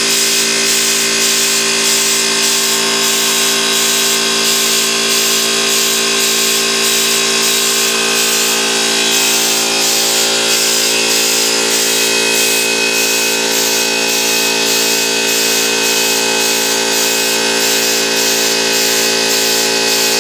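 Hopper spray gun blasting texture paint with a steady, loud hiss of compressed air at about 90 psi, over the continuous hum of a small 25-litre electric air compressor running.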